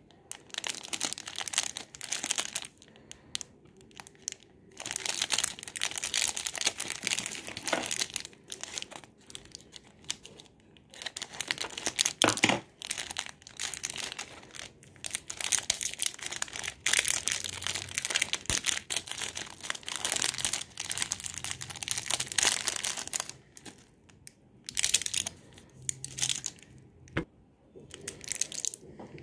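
Foil chewing-gum wrapper crinkling and tearing in the fingers as the pack is opened, in bursts of a few seconds with short pauses and a few sharp clicks. Near the end, the plastic blister tray of gum pellets is handled.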